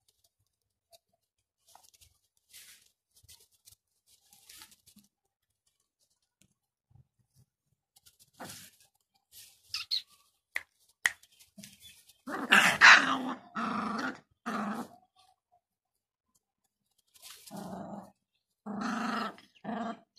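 Gultair puppies play-fighting in straw: faint rustling at first, then several short bursts of puppy growling through the second half, loudest just past the middle.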